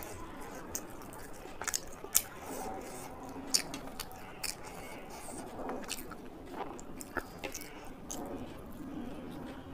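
Close-up sounds of a person eating: wet chewing with frequent sharp lip-smacking clicks, irregular throughout.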